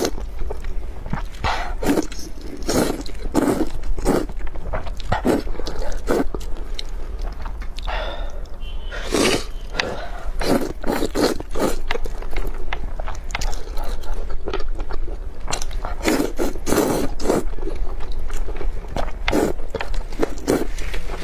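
Rice noodles slurped from spicy broth and chewed, with a run of wet slurps and chewing sounds, one longer slurp about nine seconds in.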